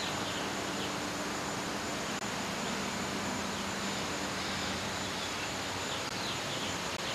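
Steady hiss of an old home-video recording, with a constant thin high whine and faint low hum. Faint short high chirps come and go several times.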